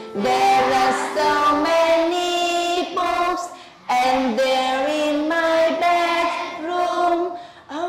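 A woman and a class of young children singing a simple English classroom song together in drawn-out, held notes, with a short break between lines about three and a half seconds in. The singing fades out near the end.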